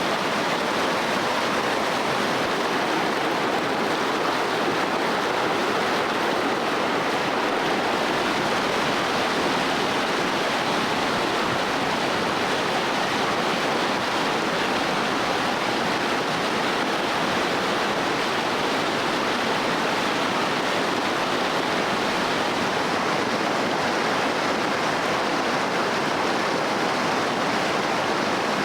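Rushing water of a stream, a steady even rush with no breaks.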